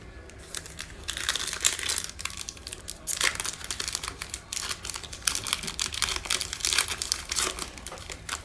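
Plastic trading-card pack wrapper being torn open and crinkled in the hands, a dense crackle that runs for several seconds with a brief lull midway.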